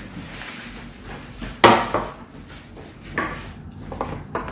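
Dishes clattering on a glass-topped table: one sharp clack about a second and a half in and a softer knock a little past three seconds, as a ceramic bowl and plates are handled and set down.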